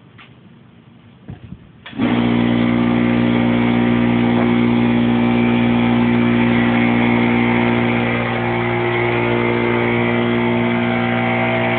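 A motor vehicle's engine starts running abruptly about two seconds in, then holds a steady idle.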